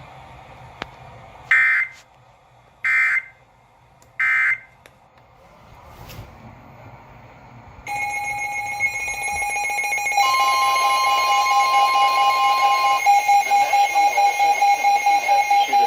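Emergency Alert System alert starting: three short, harsh bursts of the SAME digital header, about a second and a half apart. A few seconds later comes the loud, steady alert attention tone. A second, higher tone overlaps it for about three seconds, and the tone turns pulsing and raspy toward the end.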